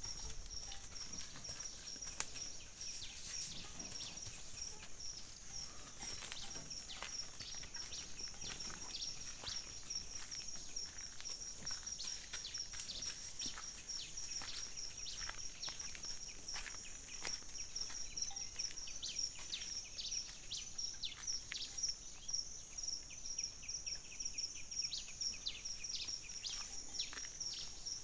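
Dawn chorus of many small birds giving quick, sharp chirps, over a steady high-pitched insect trill.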